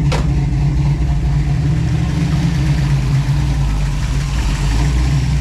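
1967 Chevy Nova's engine idling steadily on a freshly installed FiTech throttle-body fuel injection system that is still learning its idle. There is a short click right at the start.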